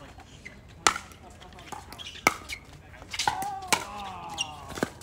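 Pickleball paddles hitting a plastic pickleball in a rally: four sharp pops about a second and a half apart, the first being the serve.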